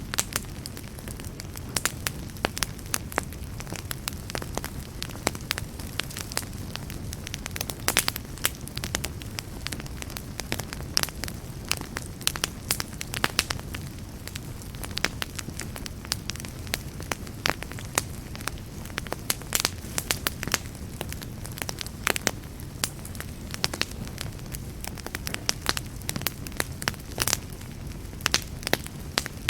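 Wood fire burning steadily, with a low rumble under many irregular sharp crackles and pops.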